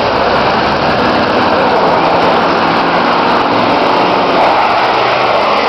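Car engines running during a demolition race on a speedway, a loud, steady engine din with no single crash standing out.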